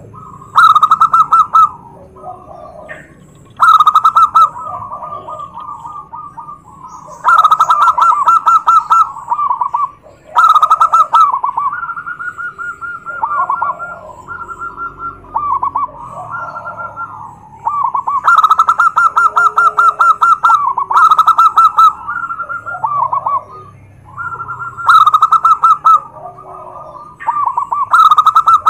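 Zebra dove (perkutut) singing: loud phrases of rapid, stuttering trilled coos that come every few seconds, with fainter coos in between.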